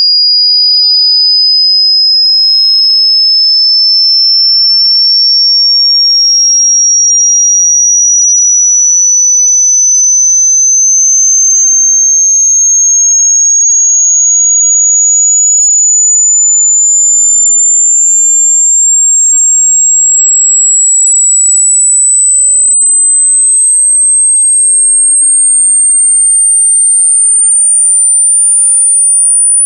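A single pure sine tone at constant loudness, high-pitched and gliding slowly and steadily upward in pitch: a hearing-test frequency sweep.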